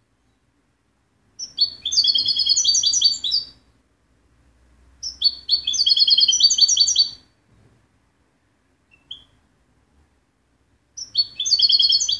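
Caged European goldfinch singing: three bursts of rapid, high trilled song, each about two seconds long, with a single short call note between the second and third.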